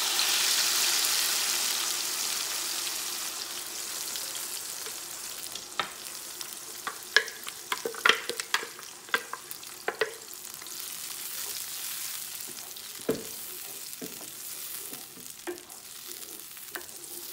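Blended tomato and onion poured into hot oil in a pot, hissing loudly at first and settling to a steadier sizzle. From about six seconds in, a wooden spoon stirs the sauce, knocking against the pot now and then.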